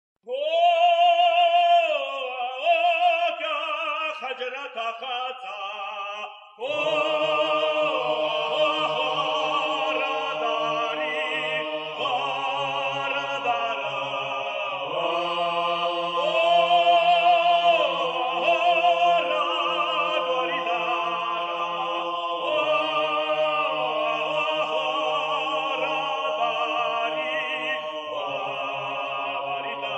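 Abkhazian folk song: a single voice opens with a long wavering phrase, then at about six and a half seconds more voices enter, with a low part held underneath, and the singing goes on in parts.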